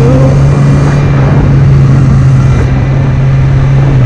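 Sport motorcycle engine running at a steady speed while riding, a steady low drone under a dense rush of road and wind noise.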